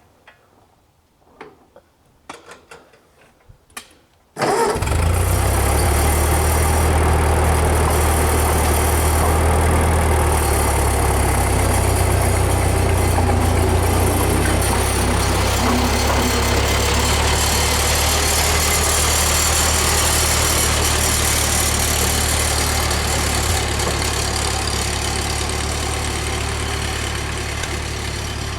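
A few faint clicks, then about four seconds in the 1947 Ford 2N tractor's four-cylinder engine is heard suddenly at full level, running steadily and loudly, easing slightly near the end.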